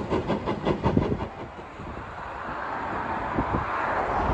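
Steam locomotive working toward the camera, its exhaust beats coming quickly and evenly, about six a second. About a second in the beats fade, and a steady rushing noise grows louder toward the end.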